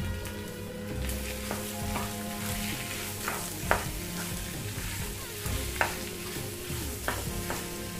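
Metal spatula stirring and mashing boiled potato into a spiced fry in a nonstick pan over a low flame, with a light sizzle and several sharp taps of the spatula against the pan.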